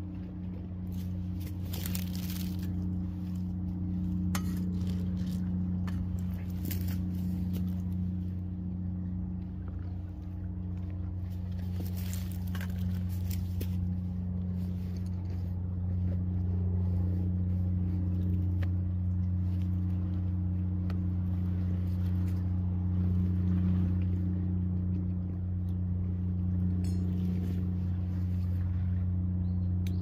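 Coffee gear set down on a perforated metal camp table, giving a few light clinks and rustles in the first half, over a steady low hum.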